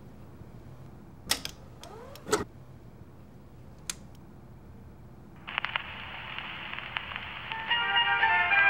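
A vinyl LP is handled and put on a record player: a couple of knocks and a sliding rustle as the record comes out of the stack, then a click of the tonearm. About five and a half seconds in, the stylus lands and vinyl surface hiss and crackle start. Near the end a folk tune begins playing from the record, sounding thin and old like a vinyl record.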